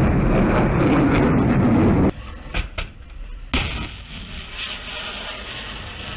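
Loud steady roar of missile rocket motors in flight, cutting off suddenly about two seconds in. A much quieter rushing noise from a missile launch follows, with a few sharp cracks, the loudest about three and a half seconds in.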